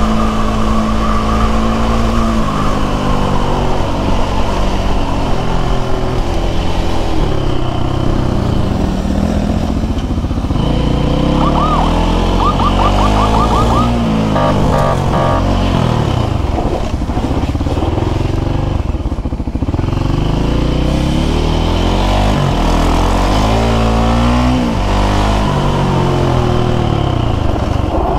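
Sport motorcycle engine heard from the rider's seat, revving up through the gears and backing off several times, its pitch climbing and dropping. A short warbling siren sounds about halfway through.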